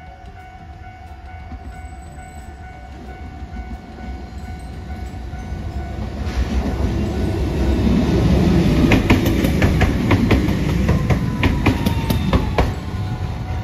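Hiroden Green Mover APEX low-floor tram approaching and passing close by. Its rumble grows louder, and a run of sharp wheel clicks on the rails comes at its loudest. A faint whine falls in pitch near the end.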